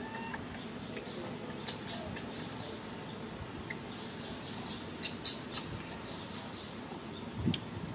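Several short, high-pitched animal chirps or squeaks in two clusters, about two seconds in and again around five to six seconds in, over a steady outdoor background hiss.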